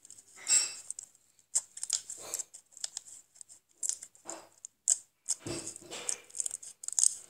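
Slime being kneaded and pressed by hands: irregular crisp crackles, clicks and wet squelches, with a longer, deeper squelch about five and a half seconds in.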